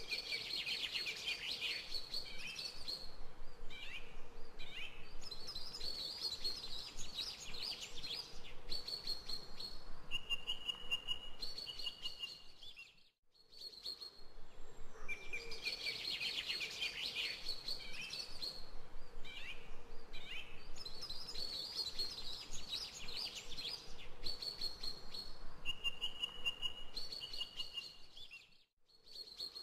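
Recorded birdsong of chirps and trills, playing as a loop of about 15 seconds that repeats. It cuts out briefly about 13 seconds in and again near the end, where the loop restarts.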